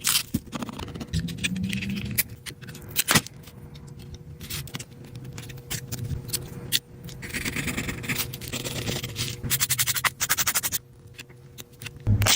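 Small repair tools scraping, prying and clicking against an iPod Touch's casing and internal parts: scattered sharp clicks and scrapes, with a fast run of even clicks about two-thirds of the way in, over a faint steady hum.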